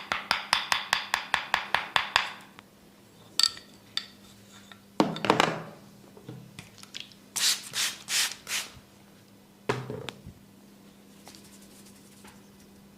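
Tok sen wooden mallet tapping on a wooden wedge in fast, even strokes, about seven a second, stopping about two seconds in. After that come a few separate wooden knocks and several short rubbing swishes.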